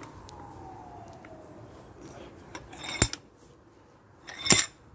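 Steel sliding handle of a cast-iron bench vise clanking twice, about a second and a half apart, the second the louder, as the vise is turned to clamp a piece of antler.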